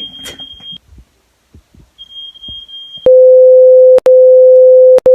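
Smoke alarm's high-pitched steady beep, stopping under a second in and sounding again faintly about two seconds in. About three seconds in, a much louder, lower steady electronic tone starts: one-second beeps with short breaks.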